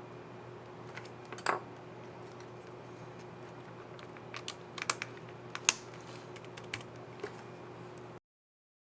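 Laptop keycap and scissor mechanism clicking under a fingertip as the key is snapped on and pressed, about ten scattered sharp clicks with a cluster in the middle, over a steady low hum. The sound cuts off abruptly about 8 seconds in.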